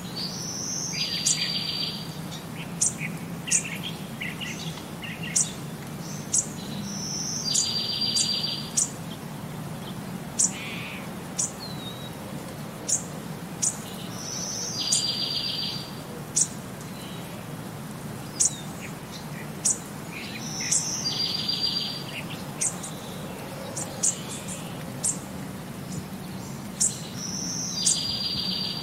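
Birdsong: a buzzy trilled phrase that repeats about every six to seven seconds, with short high chirps in between, over a low steady hum.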